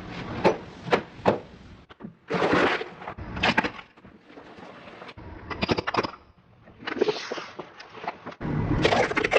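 Objects being run over and crushed under a car's tyres: a series of sharp cracks and crunching, breaking bursts, several within a few seconds, with the low rumble of the car between them.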